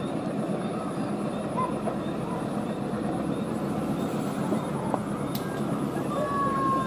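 Steady rumble of a passenger train running along the rails as it moves away, hauled by a CC 201 diesel-electric locomotive.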